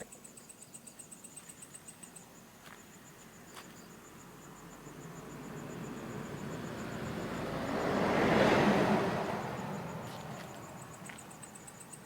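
Crickets trilling in pulses. A passing vehicle swells up, loudest about eight seconds in, then fades away.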